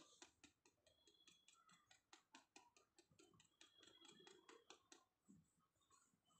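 Fast run of faint, crisp clicks and scrapes, about six a second, as a blade is drawn over a forearm shaving off the hair; the clicking stops about five seconds in.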